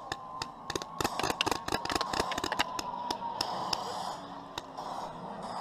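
Pyrotechnic charges crackling and popping in a rapid, irregular string like firecrackers, densest from about a second in, over the steady high whine of a model aircraft's motor.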